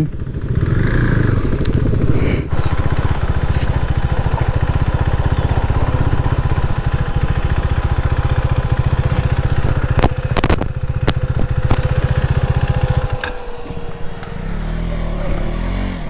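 Motorcycle engine running steadily, then stopping about thirteen seconds in, with a couple of sharp clicks shortly before it stops.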